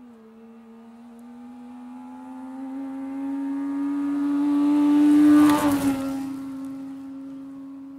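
Saab 96 rally car's three-cylinder two-stroke engine held at high revs as the car approaches on gravel, growing louder and rising slightly in pitch. It passes by about five and a half seconds in with a spray of gravel and a drop in pitch, then fades away.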